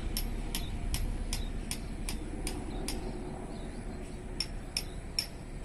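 Distant passenger train running across open fields, a low steady rumble, with a run of sharp light ticks about two and a half a second that pauses briefly and resumes near the end.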